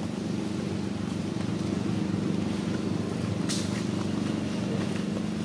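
Steady low motor hum with a rapid, even pulse, and one sharp click about three and a half seconds in.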